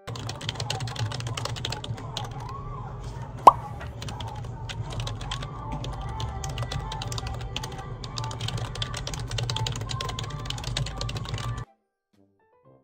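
Fast typing on a computer keyboard: a dense, irregular run of key clicks over a low hum, with one sharp pop about three and a half seconds in. The sound cuts off suddenly near the end.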